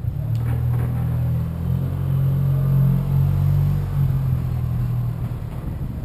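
Steady low rumble of wind and road noise on a bicycle-mounted camera's microphone while riding a city bike lane, swelling a little midway.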